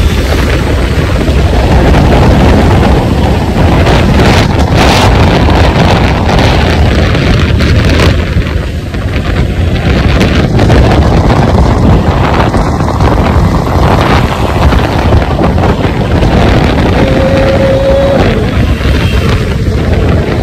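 Heavy wind buffeting the microphone on a moving scooter, over the rumble of road traffic.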